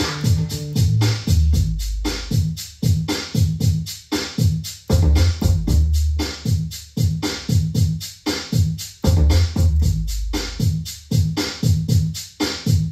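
Background music with a steady drum-machine beat, quick regular hi-hat ticks and heavy bass notes.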